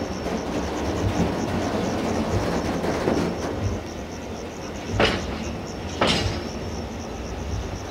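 Freight train of empty container flat wagons rolling past with a steady rumble. In the second half come two sharp wheel clacks about a second apart.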